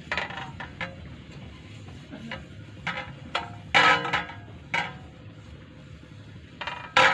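A hand rubbing ghee over a stainless steel plate to grease it, with a few short scrapes and knocks of the metal plate; the loudest comes about four seconds in and another near the end.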